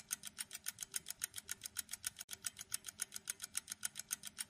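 Ticking sound effect for a quiz countdown timer: fast, even clock-like ticks, several a second, kept up steadily.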